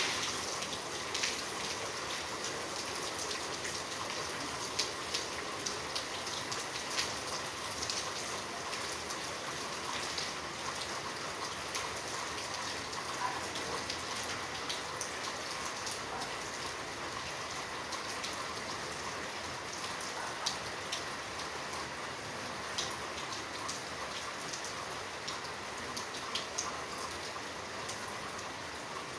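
Steady rain falling, with many individual drops tapping sharply on a surface.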